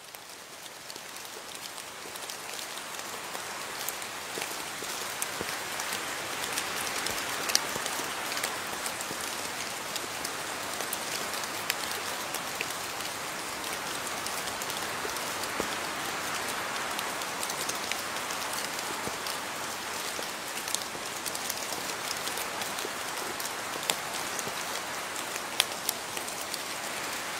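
Steady rain: an even hiss with scattered sharp ticks of single drops. It fades in over the first few seconds, then holds steady.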